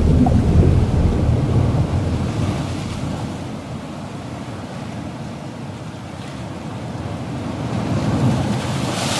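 Ocean ambience of waves and water noise, sinking to its quietest in the middle and building again near the end.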